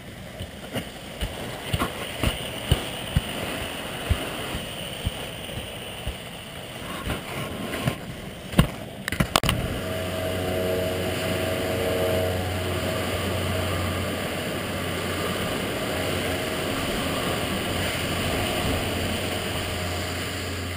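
Skis clattering and knocking on a Snowflex synthetic slope: a run of sharp clicks over the first nine seconds. From about ten seconds in, a steady low rumble with a hiss over it as the skis slide downhill across the plastic surface.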